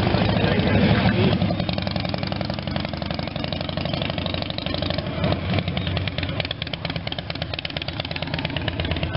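Motorcycle engines running at idle close by, a steady rapid pulsing that swells about a second in.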